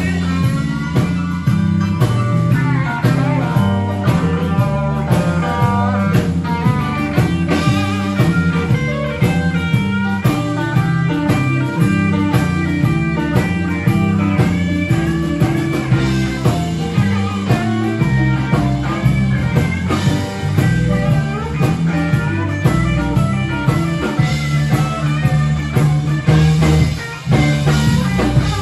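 Live blues band playing an instrumental passage: electric guitar, electric bass, keyboards and drum kit, with the bass stepping through notes under bending melody lines.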